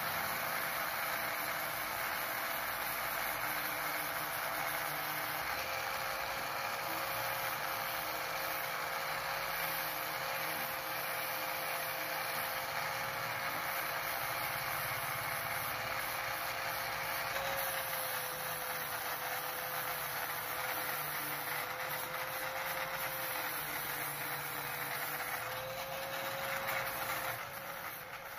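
Electric angle grinder running with an abrasive disc pressed against a rusty steel scissor blade, grinding off rust. The motor whine holds steady with small wavers in pitch under a continuous grinding hiss, and eases off near the end.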